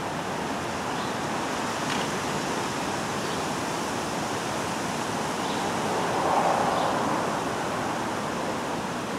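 Steady rushing outdoor background noise that swells briefly about six seconds in, with a few faint, short, high chirps.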